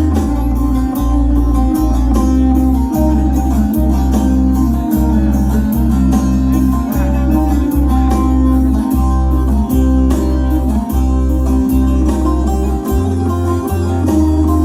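Music: an instrumental passage led by a plucked string instrument over a steady, pulsing bass line.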